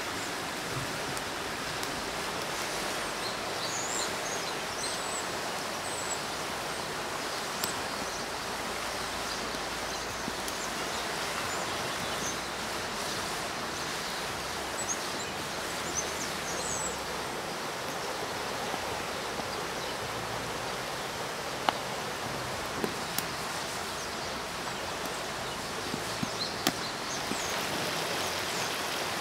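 Steady rushing outdoor background noise with small birds chirping now and then. In the last third come a few sharp crackles from the wood fire.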